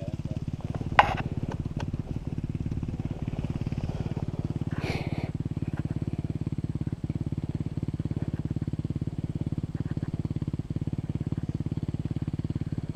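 Dirt bike engine idling steadily, with a brief sharp click about a second in.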